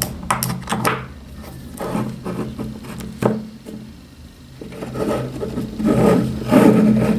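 Hands handling a cordless soldering iron and its charging plug: a few sharp clicks, then rubbing and knocking that grows louder near the end, over a steady low hum.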